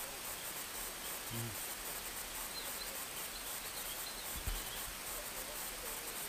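Quiet rural outdoor ambience: a steady hiss with faint bird chirps. There is a brief low hum about a second in and a short low thump about four and a half seconds in.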